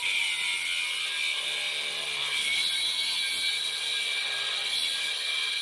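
Cordless angle grinder grinding steadily through a steel weld on a frame cross member, a loud high-pitched grinding whine.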